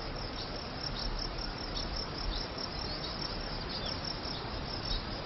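Crickets chirping at a regular pace over a steady background hiss.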